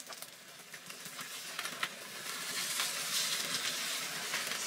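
Oil sizzling and crackling in a frying pan around a whole fish being pan-fried, with a hiss that grows louder in the second half.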